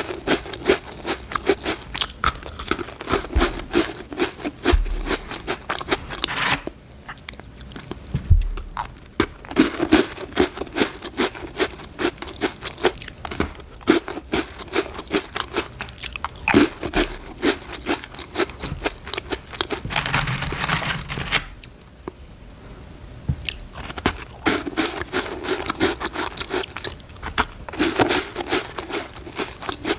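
Close-up crunching and chewing of crisp Danish butter cookies, a dense run of quick crackles with each bite and chew.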